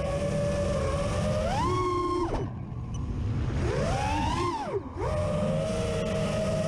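Brushless motors and propellers of an Emax Hawk Sport 5-inch FPV racing quadcopter whining, heard from the onboard camera. The pitch rises twice as the throttle is pushed and drops sharply when it is chopped, about two and a half and about five seconds in, then holds steady over a low rush of air.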